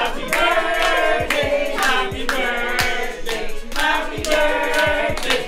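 Singing voices over music, with hands clapping along.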